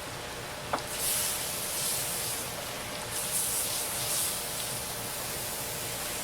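Pressure washer spraying water: a steady hiss that surges louder twice, with a sharp click about three quarters of a second in.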